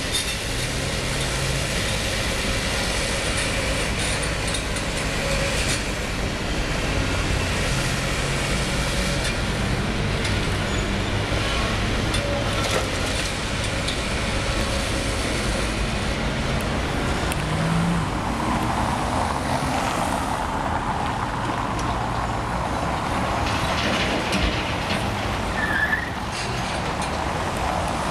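Liebherr 954 demolition excavator at work: its diesel engine running steadily under hydraulic load, with scattered sharp knocks and cracks throughout.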